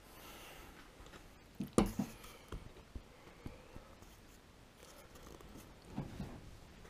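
A camera being handled and set down: a few scattered knocks and clicks, the loudest about two seconds in, over quiet workshop room tone.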